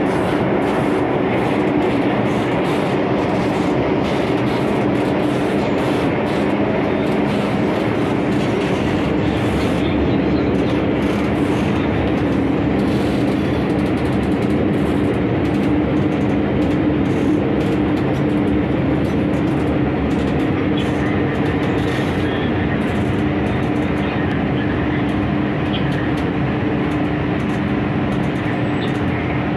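MTR Tsuen Wan Line M-Train (Metro-Cammell electric multiple unit) heard from inside the carriage, running through the tunnel and pulling into a station. There is steady wheel-on-rail and running noise with a steady hum under it.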